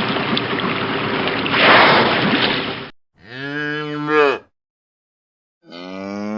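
Cattle mooing: a loud, rough, noisy stretch for about the first three seconds, then a short pitched moo a little after three seconds, and another moo starting near the end with a rising pitch.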